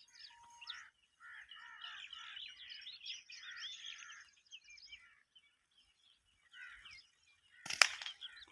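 A flock of rosy starlings chattering, a dense mix of short chirps and whistles that thins out after about five seconds. Near the end comes one sharp crack, an air rifle shot.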